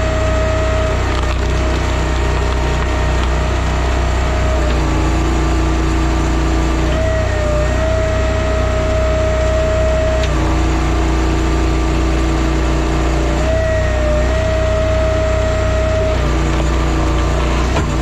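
Timberwolf Alpha 6 hydraulic log splitter running, its engine droning steadily while a whine shifts pitch every few seconds as the ram works under load. Wood cracks and splinters as the wedge splits a large round.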